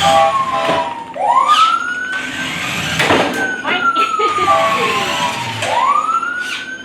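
Electronic siren of a toy remote-control fire truck wailing. Its tone slides slowly down, then sweeps quickly back up, about every three seconds, with a few scattered knocks.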